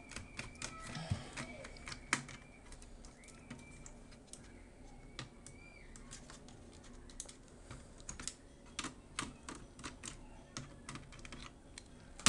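Irregular light clicks and taps of plastic and metal parts being handled inside an opened Acer Aspire 7250 laptop, as the cooling fan and heatsink are worked loose from the motherboard.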